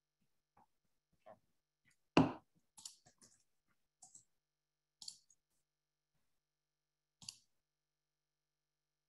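Faint, scattered clicks and taps at a computer desk, a second or so apart, with one louder knock about two seconds in.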